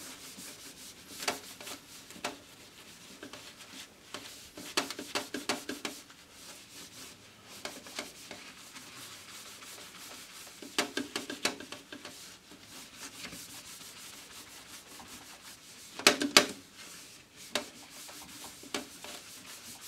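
A cloth rubbed hard back and forth over a Teflon-coated heating plate, working a primer coat of graphene ink into the surface. The strokes come in bursts, with quieter stretches between.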